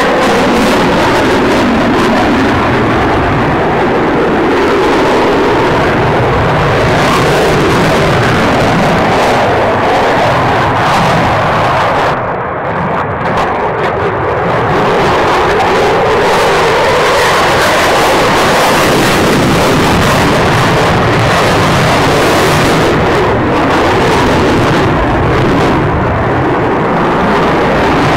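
Eurofighter Typhoon's twin Eurojet EJ200 turbofans, heard as loud, continuous jet engine noise as the fighter manoeuvres overhead. The sound briefly dulls about twelve seconds in, then comes back just as strong.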